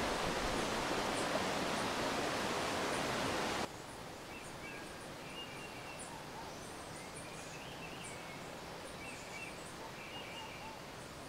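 Rushing mountain stream water, which cuts off suddenly about three and a half seconds in. A quieter forest background follows, with small birds calling in short chirps and whistles.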